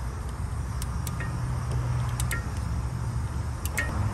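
Hand ratchet clicking in short groups of a few clicks as it runs in a starter mounting bolt, over a steady low hum.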